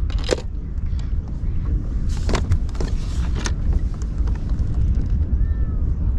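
Steady low wind rumble on the microphone, with several sharp clicks and knocks from small gear being handled aboard a kayak; the clearest come about a third of a second in and around two and three and a half seconds in.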